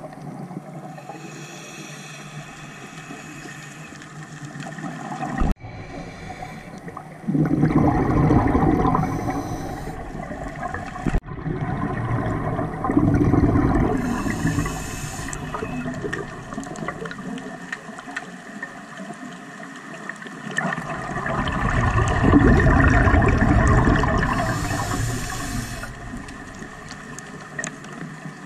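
Scuba regulator breathing heard underwater: three long rushes of bubbling exhaled air, with quieter breathing hiss between them.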